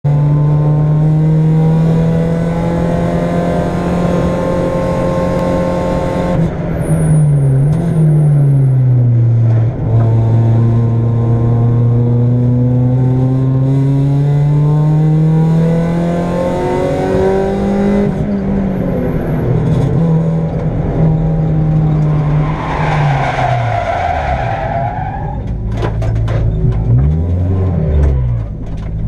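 A Ford Puma race car's four-cylinder engine, heard from inside the cabin, pulling hard, its pitch climbing and dropping with gear changes and braking. About three-quarters of the way through, the tyres squeal for a couple of seconds, followed near the end by a short run of knocks and thumps.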